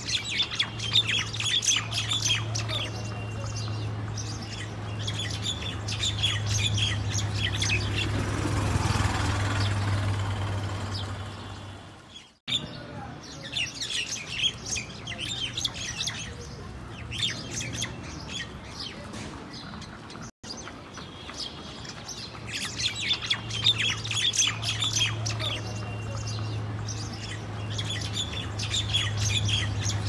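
Common mynas calling in repeated bursts of harsh, chattering squawks while fighting, over a steady low hum. The sound drops out abruptly twice.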